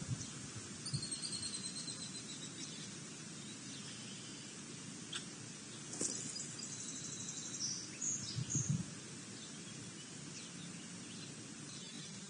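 Outdoor ambience with songbirds: a high, rapid trill about a second in and another about six seconds in. A few soft low thumps come near eight and a half seconds.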